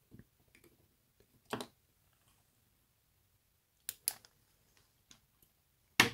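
A few separate sharp clicks: a soft one about one and a half seconds in, a quick double click near four seconds as the UV curing torch is switched off, and a louder click at the end.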